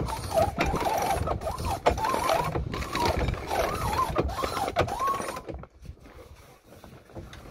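Sailboat mainsail being hoisted by hand: the running rigging squeaks again and again with the pulls, each squeak rising and falling in pitch. It stops about five and a half seconds in.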